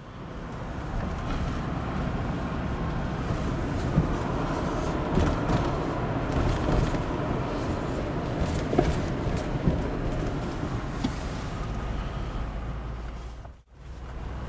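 Steady road and engine noise heard from inside a moving car on wet streets, with a few brief small knocks. It fades out briefly near the end.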